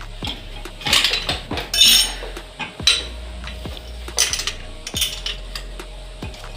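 Metal clinks and knocks of tools and steel parts handled against the coilover shock, irregular, with the loudest strikes about a second and two seconds in.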